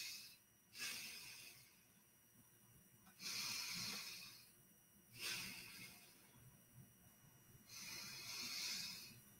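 A woman taking slow, deep breaths in and out, faint, each breath a soft rush of air lasting about a second, with quiet pauses between them.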